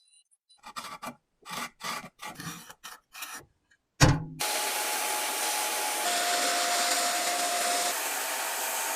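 A few short scraping or rubbing strokes by hand, then a click and a small power tool starting up about four seconds in and running steadily, a rough hiss with a faint whine.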